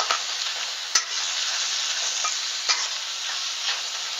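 Shrimp sizzling in a hot wok of oil and butter, a steady frying hiss. A spatula stirs them, knocking against the wok sharply a few times, loudest at the start and about a second in.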